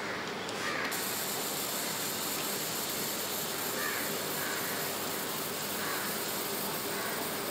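Fiber laser marking machine engraving: a steady high-pitched hiss switches on about a second in and holds steady as the beam marks the surface.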